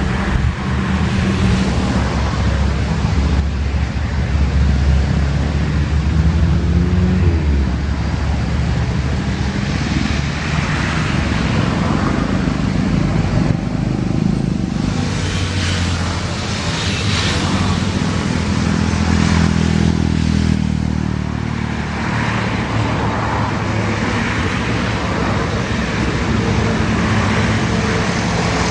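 Loud, continuous engine noise with a low hum that shifts in pitch, and a brief tone that rises and falls about seven seconds in.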